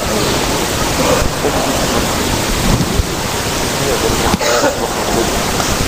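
A man's voice speaking, faint and barely made out under a loud, steady hiss that fills the recording.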